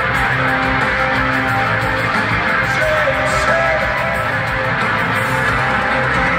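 Rock band playing live in an arena, heard from the crowd: loud electric guitars over bass and drums, steady throughout.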